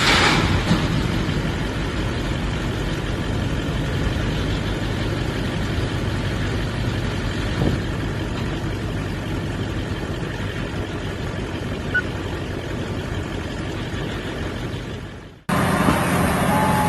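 Heavy vehicle engine running steadily. Near the end the sound cuts off abruptly, and a different engine sound starts with a short whistle-like tone.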